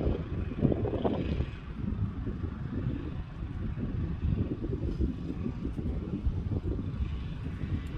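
Lawn mower engine running steadily with a rough, low rumble.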